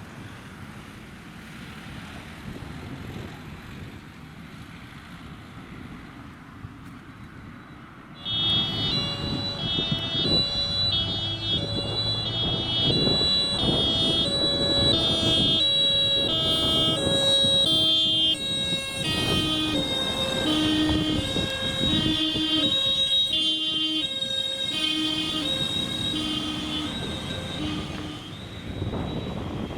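Wind noise on the microphone, then about eight seconds in fire engines' two-tone sirens (German Martinshorn) start up, several high-low patterns overlapping, over the low running of the trucks' engines.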